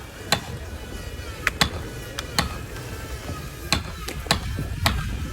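Irregular hammer blows, about eight sharp knocks in five seconds, some in quick pairs, over a low steady rumble.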